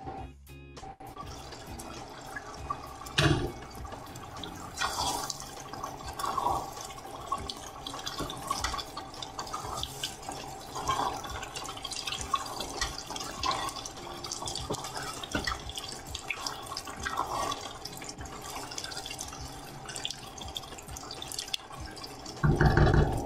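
Thick chicken-and-rice stew simmering in a pot, bubbling and plopping, with a wooden spatula stirring and scraping through it; quiet background music underneath.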